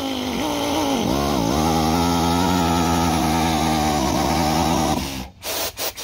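Air drill driving a step reamer through a bolt hole in a landing-gear leg, its motor whining with air hiss. The pitch sags about a second in as the reamer bites, then holds steady until the drill stops about five seconds in, followed by a few short clicks.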